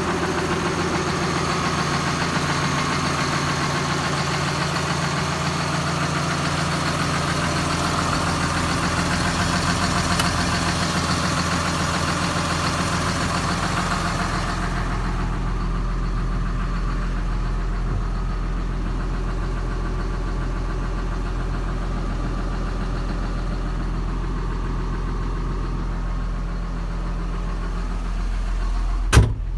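John Deere 6830 Premium tractor's six-cylinder diesel engine idling steadily. About halfway through, the sound turns muffled and deeper as it is heard from inside the cab. A single sharp click comes near the end.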